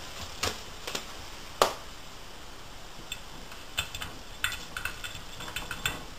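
A cat's claws and paws tapping and clicking irregularly on the glass door of a front-loading washing machine, with one sharper knock about a second and a half in and quick runs of taps near the end.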